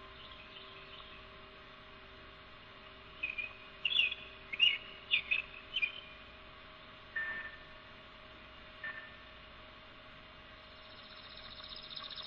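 Backyard birds calling: a quick cluster of about half a dozen short chirps in the middle, then two single, lower short notes a second or so apart. A faint steady hum lies underneath.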